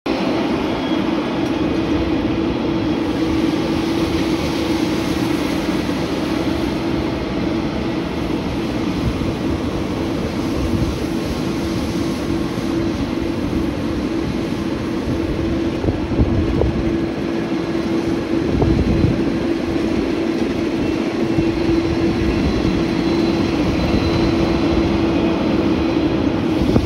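Holder sidewalk tractor fitted as a sweeper working close by: its diesel engine and hydraulics running with a steady drone and a constant hum, over the rushing noise of the rotating broom on the pavement.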